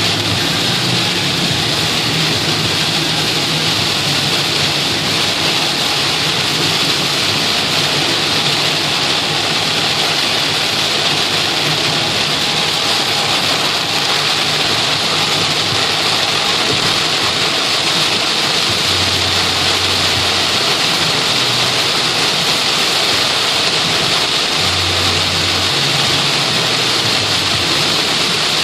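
Torrential rain pounding on a moving car in a steady, dense hiss, with a low engine hum underneath.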